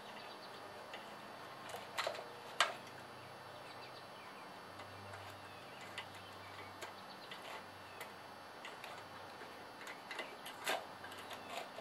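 Faint, scattered clicks and taps of small metal and plastic parts as a homemade air filter is fitted to a garden tractor engine's carburetor by hand. Two sharper clicks come about two seconds in, and another near the end.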